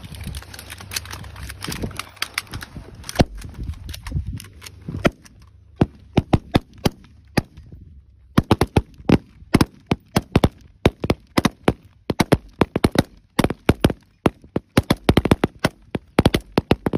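Several 5.56 mm M4 carbines firing single shots in an irregular string, from a team of rifles firing together, thickening into rapid, overlapping shots from about eight seconds in. Wind on the microphone in the first few seconds.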